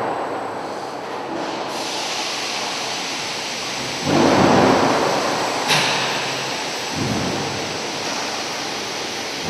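Finger car of a concrete block plant's curing rack system running, a steady rushing rumble of machinery. It swells about four seconds in, with a sharp click a little later.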